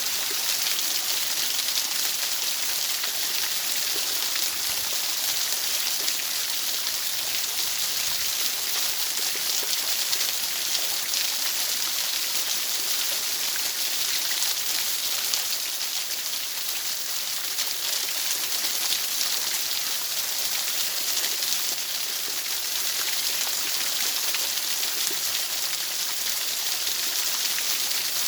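Steady, high-pitched, rain-like hiss of masking noise, even and unchanging throughout.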